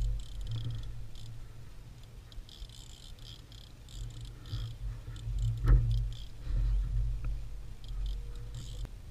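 Spinning reel being cranked in bursts while a fish is fought on the rod, giving rounds of light ticking. Under it is a low rumble with thumps, and one sharp knock a little past halfway.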